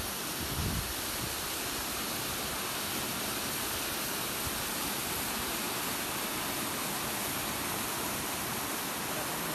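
Steady rushing of a waterfall, an even hiss with no breaks, with a brief low bump about half a second in.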